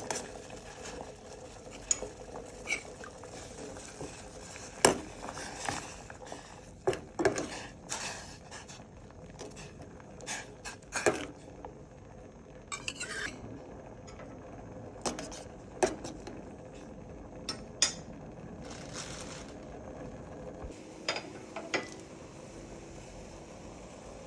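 Metal ladle clinking and scraping against a stainless steel pot while curry paste is stirred and dissolved in boiling water. The sharp clinks come at irregular intervals, the loudest about five seconds in.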